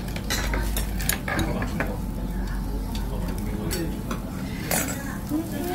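Metal spoon scraping and clinking in a stainless steel rice bowl, several short sharp clicks. Behind it is a steady low hum with a faint sizzle, typical of meat grilling on a tabletop barbecue.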